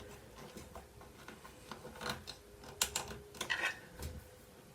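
Light, scattered clicks and taps as a drawer pull is turned by hand onto a screw held with a screwdriver, with a few sharper clicks in the second half.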